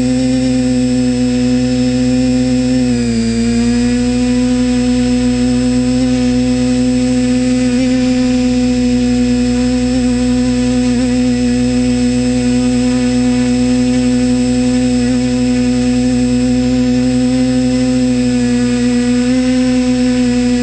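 Multirotor drone's electric motors and propellers whining steadily in a hover, heard from its onboard camera. The pitch dips briefly about three seconds in, then holds steady.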